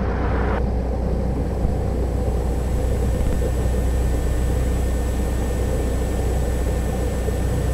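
Cessna 172 Skyhawk engine idling, heard from inside the cockpit as a steady low drone that holds even throughout.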